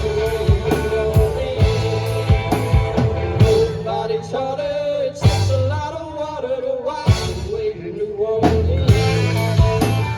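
Live rock band playing: drums keep a steady beat while a lead melody line bends and slides over guitar and bass.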